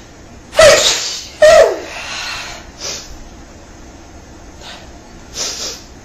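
A woman sneezing loudly twice in quick succession, under a second apart, followed by a few much fainter sounds.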